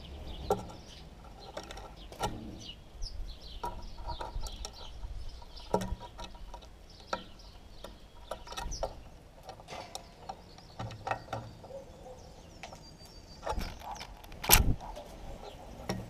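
House sparrows feeding from a dish of seeds: irregular sharp pecking taps and clicks against the dish and the seeds, mixed with short high chirps. A louder knock comes near the end.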